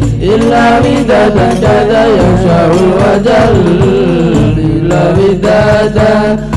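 Several male voices singing a sholawat melody together into microphones, with a wavering, ornamented line, accompanied by strokes on a rebana frame drum.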